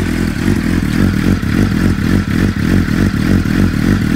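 Suzuki GSX-R600 inline-four engine idling warm through a stainless end can. The idle is hunting: the engine note surges and dips unevenly instead of holding steady, which the owner is unsure is serious.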